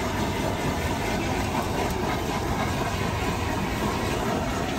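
Steady, even background noise of a busy street-food market, with no single sound standing out.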